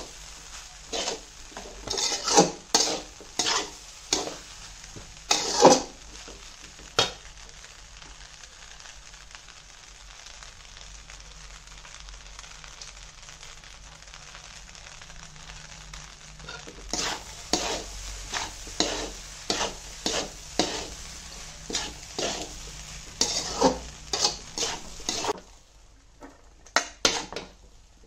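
Steel spatula scraping and clanking against a large hammered aluminium pan as beef fried rice is stir-fried, over a steady sizzle. The strokes come in quick clusters for the first several seconds, give way to about ten seconds of sizzling alone, then start again, with the sound dropping off near the end.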